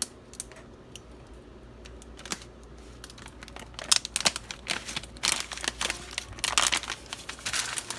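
Plastic crinkling and rustling with scattered light clicks, as dry-rub seasoning is opened and put on. The rustling grows into dense, quick bursts in the second half.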